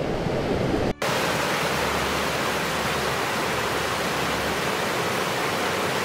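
Steady rushing of water pouring over a small rocky woodland cascade. It drops out for an instant about a second in.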